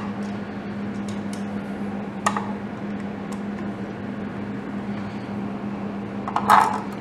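Small parts being handled by hand while a cover is refitted over the engine's trigger wheel: a few light clicks and taps, then a louder clinking rattle of a screw or washer about six and a half seconds in. A steady low hum runs underneath.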